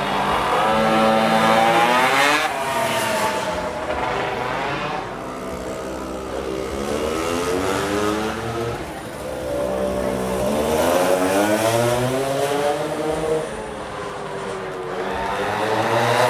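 Small engine of a motorized beer-crate racer revving up and dropping back about four times as it accelerates and slows.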